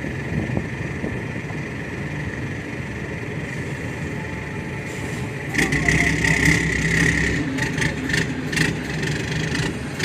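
Heavy diesel vehicle engine running, growing louder for about two seconds past the middle before easing back.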